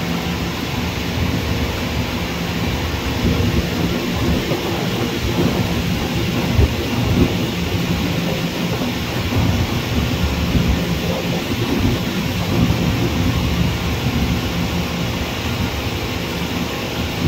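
Wind buffeting the microphone, a gusty low rumble, over a steady distant roar of jet airliners at the airport.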